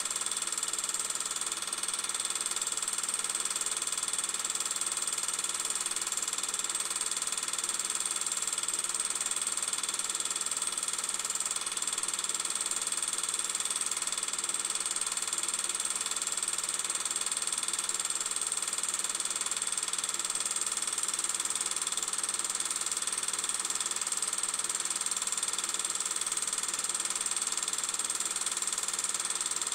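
Steady mechanical whirring with a high hiss, unchanging throughout.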